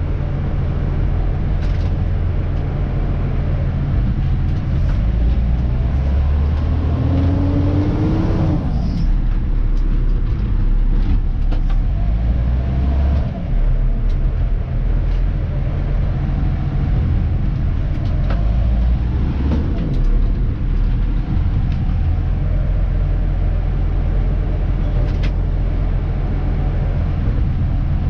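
Dennis Elite 2 garbage truck's diesel engine running steadily under way, heard from the cab as a low drone. A brief rising and falling whine comes about eight seconds in, and a few short clicks and knocks come through.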